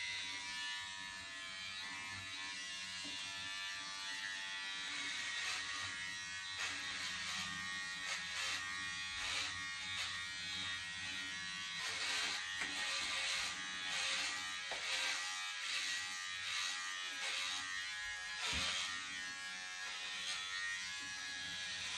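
Electric hair clippers buzzing steadily while cutting hair, with irregular short rasps over the buzz as the blades bite into the hair.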